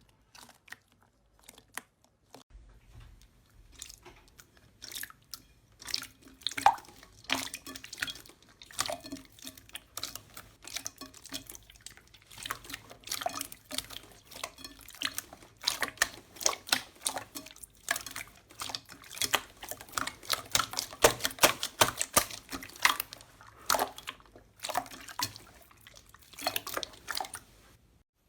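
Slime being squished and worked, making many wet clicks and pops. They are sparse at first, come thick and fast from about four seconds in, and stop suddenly near the end.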